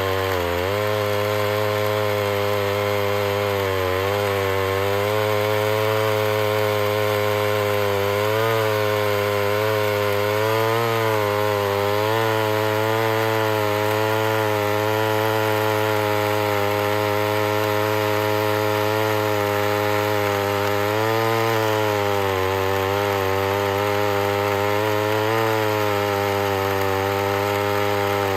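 Homelite two-stroke chainsaw running near full throttle through a long cut, its pitch sagging briefly now and then under the load of the chain and recovering.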